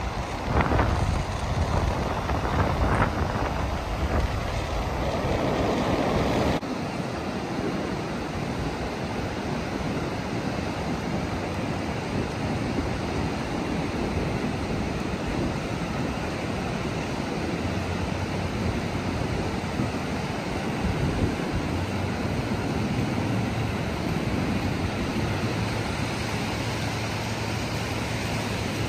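Ocean surf washing up a flat beach, a steady rushing hiss, with wind rumbling on the microphone. The sound drops and changes abruptly about six seconds in.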